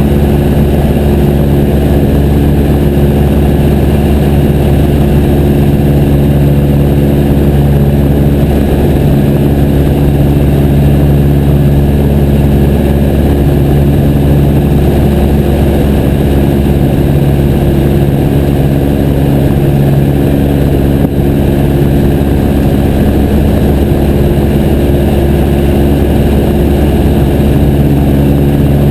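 Piper J3 Cub's light-aircraft engine and propeller running steadily in flight, a loud, even drone.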